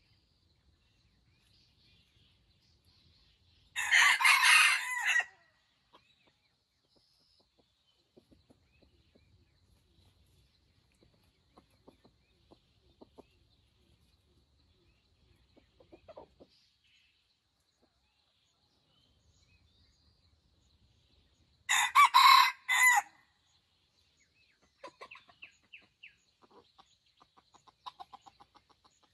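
Junglefowl rooster crowing twice, each crow short at about a second and a half, the first about 4 s in and the second near 22 s. Soft clucking and faint ticks come between the crows and after them.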